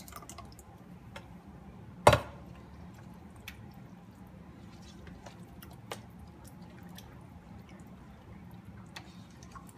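Thick tomato pasta sauce pouring from a can into a pot of browned meat, then a spoon stirring the meat sauce in a stainless steel pot: wet squishing with faint scattered clicks. One sharp knock about two seconds in is the loudest sound.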